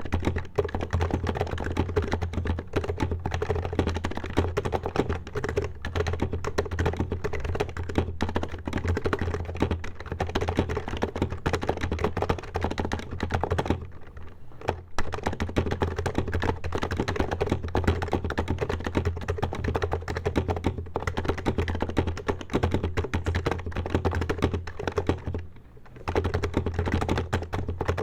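Continuous fast typing on an HHKB Professional HYBRID Type-S keyboard with 45 g Topre electrostatic capacitive silent switches: a dense, unbroken stream of key strokes that pauses briefly about halfway and again near the end.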